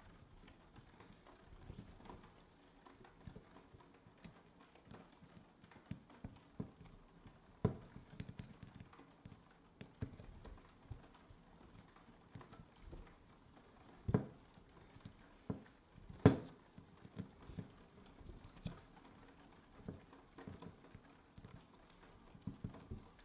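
Small metal engine parts and hand tools clicking, tapping and knocking on a work surface during hand assembly of a miniature four-stroke nitro engine, in scattered irregular strokes. Two louder knocks come about two-thirds of the way through.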